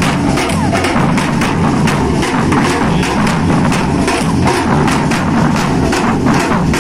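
Women's batucada drum troupe playing large surdo-style bass drums with sticks in a steady, driving rhythm.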